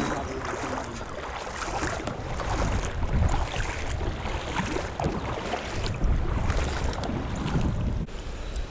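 Wind buffeting the microphone in uneven gusts, over the rush and splash of creek water.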